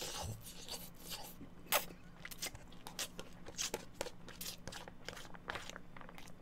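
A person eating spaghetti close to the microphone: chewing, with many small irregular wet mouth clicks and smacks. One sharper click comes a little under two seconds in.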